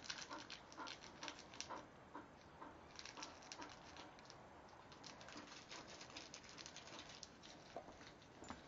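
Bull terrier panting faintly, about two to three quick breaths a second.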